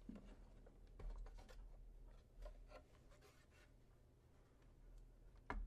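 Faint scraping and light clicks of a plastic console casing being handled and worked open, ending in one sharper click near the end. This is an Xbox One X bottom cover being flipped and pried loose.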